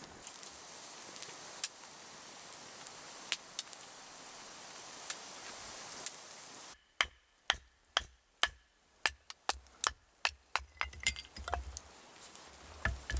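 Wood campfire crackling with a steady hiss and scattered pops. About two-thirds in, the hiss stops abruptly and a quick series of sharp clinks follows, some with a brief metallic ring.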